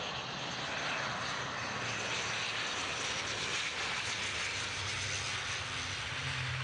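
ATR twin-turboprop airliner on its landing roll, passing close by: steady engine and propeller noise that swells over the first second, with a low propeller hum coming up near the end.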